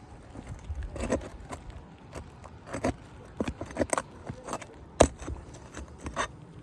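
Scattered metallic clicks and scrapes of nails being pried out from under asphalt roof shingles, with one sharp click about five seconds in.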